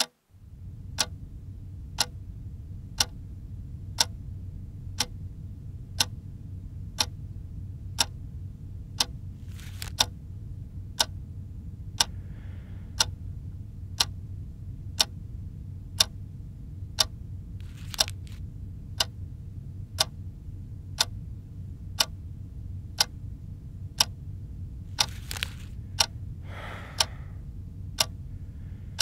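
Analogue wall clock ticking steadily, one sharp tick a second, over a low steady hum. A few brief soft rustling noises come in around the middle and near the end.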